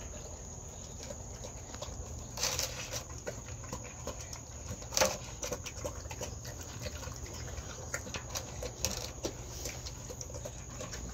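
Dog eating dry kibble from a stainless steel bowl: irregular crunching and small clinks of food against the metal, with two louder clatters about two and a half and five seconds in.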